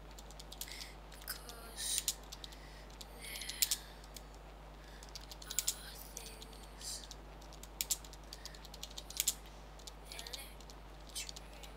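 Computer keyboard typing: irregular bursts of keystrokes with short pauses between them, over a low steady hum.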